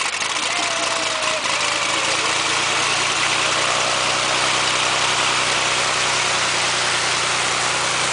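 Lancair Legacy's uncowled six-cylinder horizontally opposed aircraft engine on its first start. It fires unevenly for the first second or so, then settles into a steady idle.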